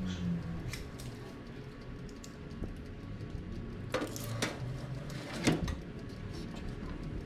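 A metal baking tray is pushed onto the wire rack of a countertop electric oven. There are a few light clicks, then two sharp metal clanks about four and five and a half seconds in, the second one the louder.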